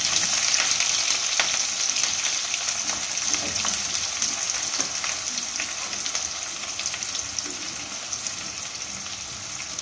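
Freshly added sliced red onions sizzling in hot oil in a kadai, a steady hiss with fine crackles that slowly dies down.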